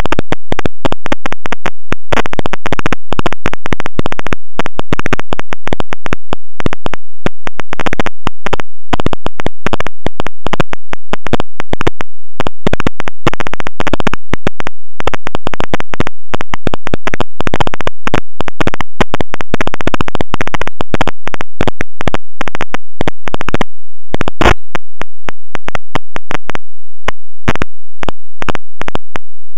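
Harsh, very loud electronic buzzing that keeps cutting in and out in rapid stutters, the sign of distorted, corrupted audio rather than a recorded event.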